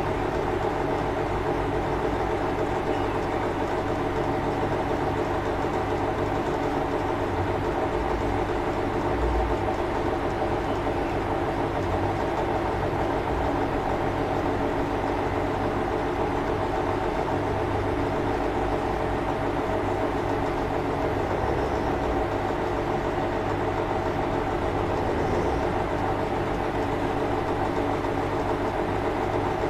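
A steady, unbroken mechanical drone, like an idling engine, holding the same level throughout with no breathing rhythm.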